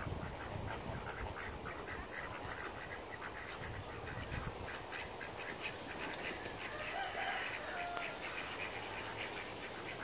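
A flock of ducks quacking in quick, repeated short calls, with a louder stretch of calling about seven seconds in.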